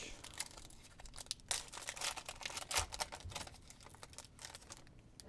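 Foil wrapper of a trading-card pack crinkling and tearing as it is opened by hand, with a dense patter of small crackles and clicks.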